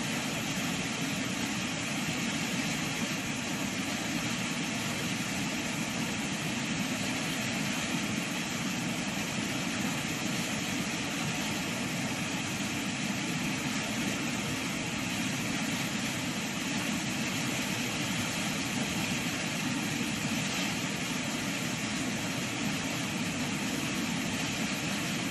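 Swollen floodwater river rushing steadily, an even, constant noise with no breaks.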